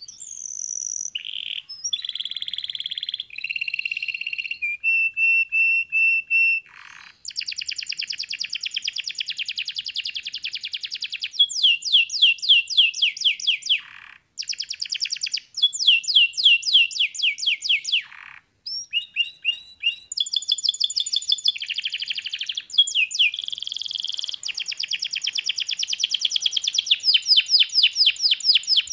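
Domestic canary singing a long, high-pitched song of rapid trills and rolling repeated notes, with a few held notes and short breaks between phrases.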